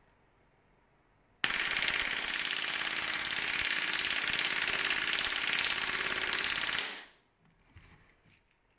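G&P M249 airsoft electric gun firing one long full-auto burst of about five and a half seconds, starting about a second and a half in and dying away over a moment at the end.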